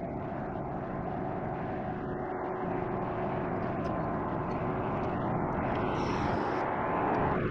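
Large bulk cargo ship passing close by, a steady engine drone with a faint hum in it, growing slowly louder.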